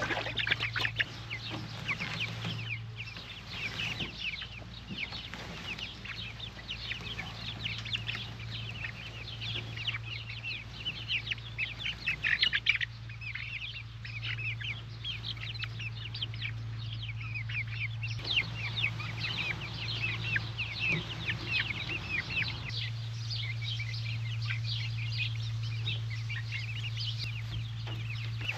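A flock of young, not yet full-grown chickens chirping and peeping continually, many short high calls overlapping, over a steady low hum.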